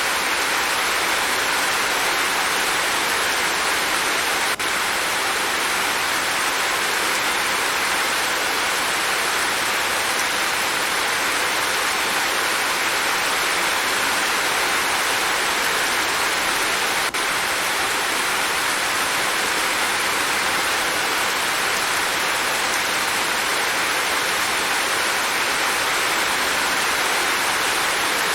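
Steady rain falling, an even hiss with no single drops standing out.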